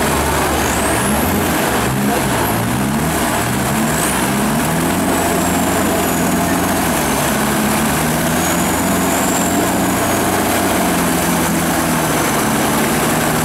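Off-road 4x4 truck engines revving and running hard under load in deep mud, their pitch rising and falling in the first few seconds and then holding steadier. A thin high whistle slides up and down over the engines in the first half.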